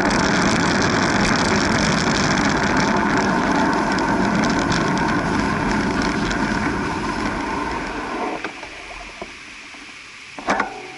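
Wind rushing over the microphone, with tyre and road noise, as a bicycle rides along a street. The noise dies away about eight seconds in as the bike slows to a stop behind queued cars, and a short, sharp clatter sounds near the end.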